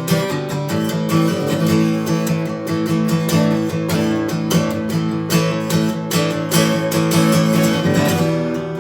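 Acoustic guitar strumming chords in a steady rhythm, an instrumental break with no singing.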